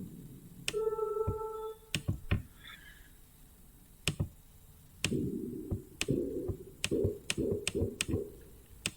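Synthesized sci-fi sounds from the Rast Sound Sounds of Mars plugin. A short held pitched tone comes about a second in, then a run of low drum-like hits, about three a second, through the second half. Sharp mouse clicks sound between them.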